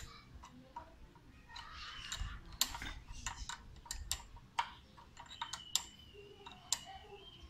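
Irregular small clicks and taps of hands handling wiring and plastic parts at a Yamaha Sniper 150's handlebar.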